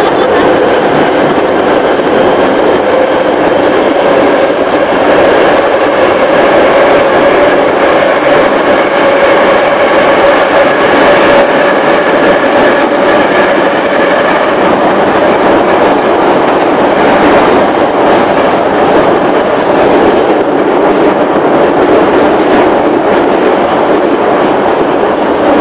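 Metrowagonmash 81-717.6/714.6 metro train running between stations, heard from inside the car by the doors: a steady running noise with a whine held on one pitch over it.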